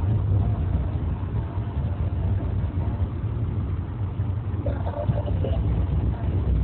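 Car interior noise while driving on an unpaved forest road: a steady low rumble of engine and tyres on the rough surface.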